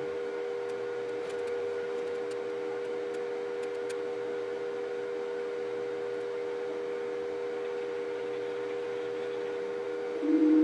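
Anycubic Vyper 3D printer running a print: a steady two-note hum from its fans and motors, with a few faint light ticks. Near the end a louder, lower hum comes in.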